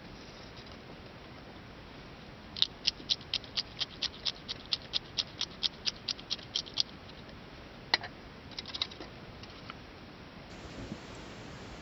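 A quick run of sharp, evenly spaced clicks, about four a second for some four seconds, then one louder click and a few faint ticks.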